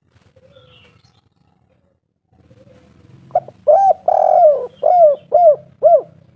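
Spotted dove cooing its 'kuk 3' call: after a quiet start, a loud phrase of about six rounded coos, the third one longer and drawn out, the last ones short and evenly spaced.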